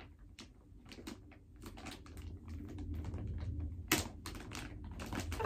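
Clear plastic packaging bag crinkling and rustling in irregular small crackles as hands work at it to get it open, a little louder in the second half with one sharper snap near the end.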